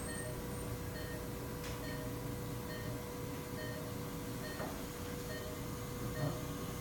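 Operating-room patient monitor sounding a short electronic beep about every 0.8 s over a steady electrical hum, the monitor's pulse tone following the heartbeat. A few faint clicks from surgical instruments come in between.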